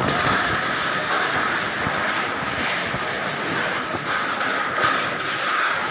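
Steady rushing noise of strong storm wind, with wind buffeting the microphone.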